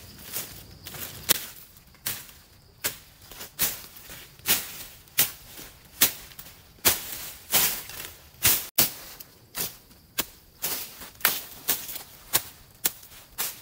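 Machete slashing through forest undergrowth: repeated sharp swishing cuts through leafy stems, a little over one a second and unevenly spaced.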